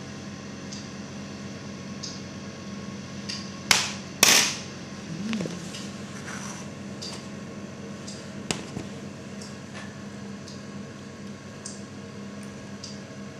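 A steady low hum with two sharp knocks of hard objects about four seconds in, a lighter knock just after, and a single click a few seconds later.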